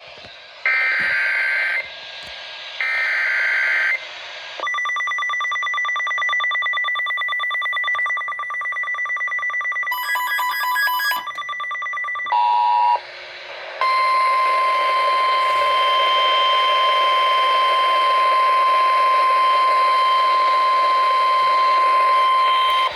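Emergency alert signalling: two short bursts of SAME digital header data, then several seconds of pulsing electronic alarm beeps, then the steady NOAA Weather Radio 1050 Hz warning alarm tone for about nine seconds. The long steady tone announces an incoming warning.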